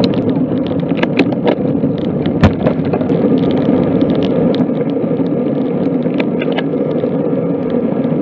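Steady rumble of wind and road noise on a bicycle-mounted camera while riding, with scattered sharp clicks and knocks from bumps and rattles, the loudest about two and a half seconds in.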